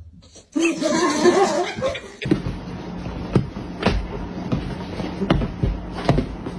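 A person laughing for about two seconds. Then comes a run of soft thumps and scuffles over a low hum, as two tabby cats play-fight and wrestle on a bed.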